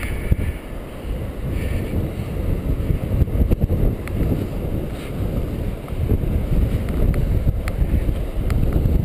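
Wind buffeting the microphone of a camera riding on a moving bicycle: a loud, low, gusting rumble. A few light ticks sound in the second half.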